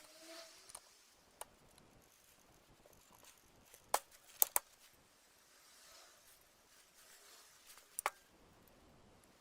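A few sharp clicks and taps of small parts being handled or fitted: one about four seconds in, two more just after, and a quick pair near the end.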